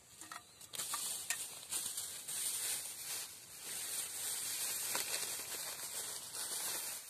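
Wood campfire burning, a few sharp crackles followed by a steady high hiss that holds until it cuts off near the end.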